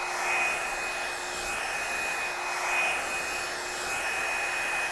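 Revlon One Step hair dryer brush running steadily, blowing hot air: an even rush of air with a steady high whine.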